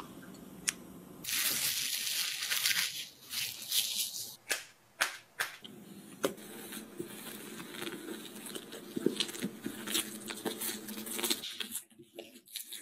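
Food-preparation handling sounds: thin batter pouring through a steel mesh strainer into a ceramic dish, then a few seconds of loud crinkling and tearing noise, several sharp clicks, and softer scraping and knocking as butter is worked into the mochi dough. It goes quieter about a second before the end.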